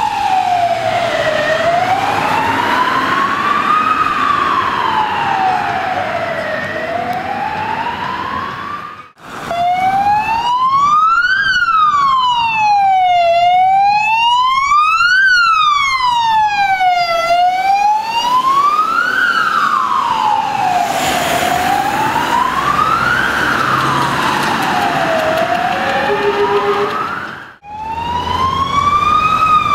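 Wailing electronic sirens of a Belgian ambulance and a MUG medic car on an emergency run, each pitch sliding smoothly up and down about every four seconds. The sound drops away briefly about nine seconds in and again near the end as one siren gives way to another, the middle one louder and higher.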